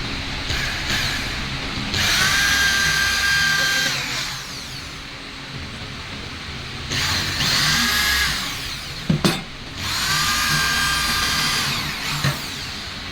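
Electric drill running in three bursts of about two seconds each, its motor whine spinning up at the start of each run and winding down at the end. A sharp knock comes just before the third run.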